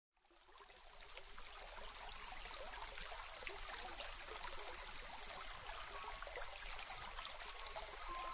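Quiet trickling and babbling of a shallow stream, a steady watery hiss flecked with small splashing ticks, fading in over the first couple of seconds.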